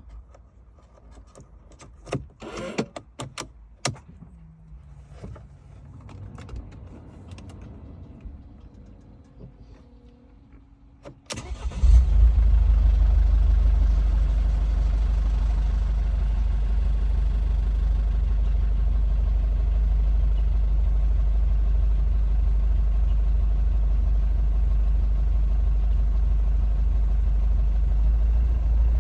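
Mercedes OM651 four-cylinder diesel engine started about eleven seconds in after a few clicks and knocks, then idling steadily. The idle is rough.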